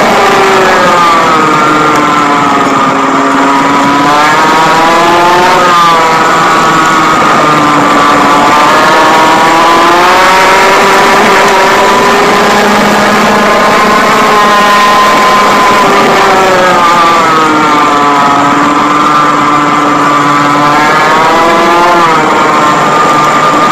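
Rotax Max kart engine, a 125cc single-cylinder two-stroke, at racing speed, recorded close up from a phone mounted on the kart. Its revs fall as the kart slows into corners and climb again on the straights, several times over.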